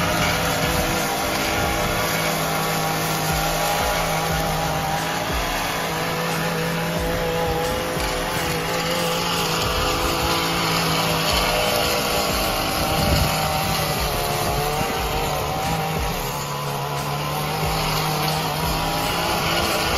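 Gas-powered stick edger running steadily as its blade cuts through overgrown grass along a concrete driveway edge, its engine note wavering slightly with the load. There is a brief louder burst about two-thirds of the way through.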